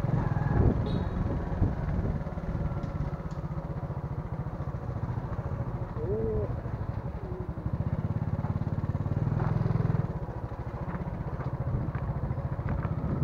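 Motorbike engine running while riding along, a steady low pulsing rumble that grows louder for about two seconds past the middle, then eases back.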